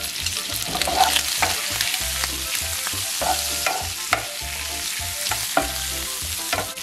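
Shrimp sizzling as they fry in olive oil and butter in a pan, with a steady hiss and repeated short clicks and scrapes of a utensil stirring them.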